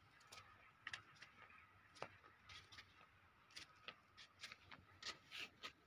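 Near silence: faint outdoor ambience with scattered light clicks and rustles.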